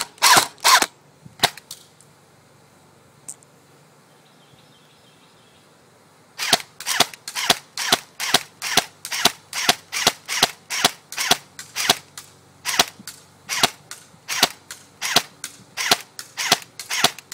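Airsoft M4 rifle firing on semi-auto as single sharp pops. A few quick shots open, then a pause of about five seconds broken by one faint click. From about six seconds in, the shots resume at a steady two to three a second.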